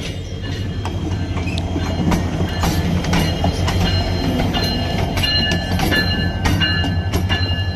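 Diesel-electric locomotive running slowly past close by. Its engine is a deep steady drone that grows louder over the first couple of seconds, the wheels click over the rail joints, and a thin high whine comes in about five seconds in.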